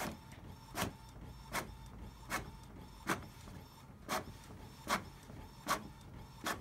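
Epson GP-C831 colour inkjet label printer printing a label: a regular beat of short strokes, about one every three-quarters of a second, over a faint steady tone.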